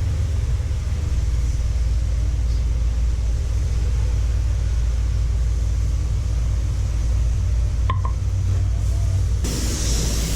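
Steady low mechanical rumble, with a single sharp click about eight seconds in.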